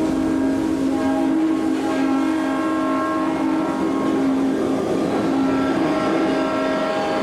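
Sound effects of the Earthquake: The Big One ride's simulated subway disaster: a steady low drone, with higher tones coming and going, over a continuous rumbling noise.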